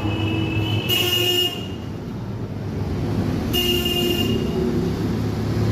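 A vehicle horn honks twice, two short toots about two and a half seconds apart, over a steady low hum of background traffic.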